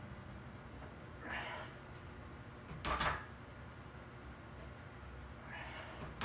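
Loaded barbell set back down onto the power rack's steel safety pins during pin presses: a metal clank about three seconds in and another at the very end. Each clank comes after a short hissing breath from the lifter.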